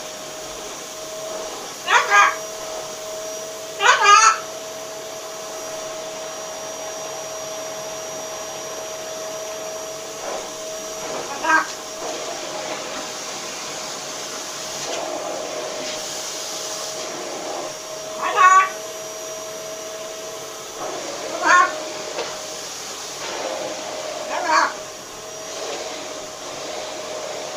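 Green-winged macaw giving a short call every few seconds, over a steady background hum.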